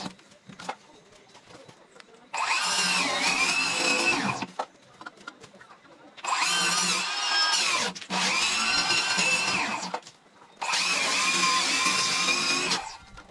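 Small handheld electric power tool shaping a block of foam: its motor whine runs in four bursts of about two seconds each, starting and stopping, with the pitch sagging now and then as it bites into the foam.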